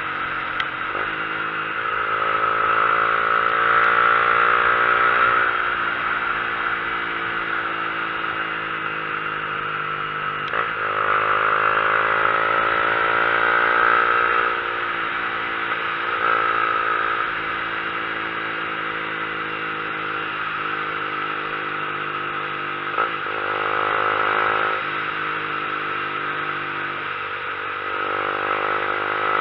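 Vehicle engine pulling through the gears, its pitch rising steadily and then dropping at each shift, about half a dozen times, over steady wind and road noise.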